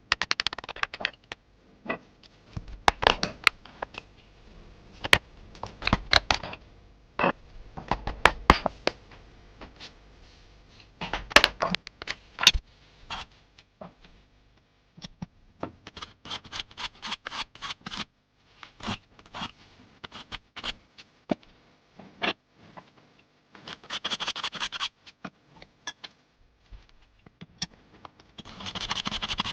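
Irregular scratching and scraping mixed with scattered sharp knocks and clicks, from hand work on small wooden parts at a workbench. Quicker runs of scratchy strokes come about two thirds of the way through and again near the end.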